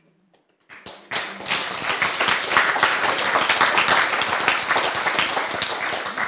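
Audience applauding: after a brief hush, a few scattered claps about a second in quickly swell into steady applause, which begins to tail off near the end.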